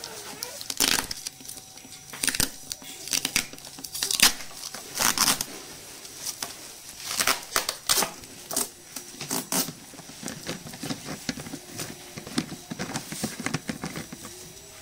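Hands twisting the large black plastic screw cap off a Nagawa electric knapsack sprayer's tank: irregular plastic clicks and scrapes.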